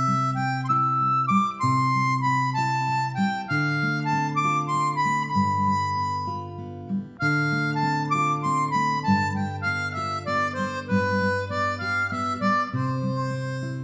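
Background music: a harmonica melody over a plucked-string accompaniment and a steady bass line, with a brief break about halfway.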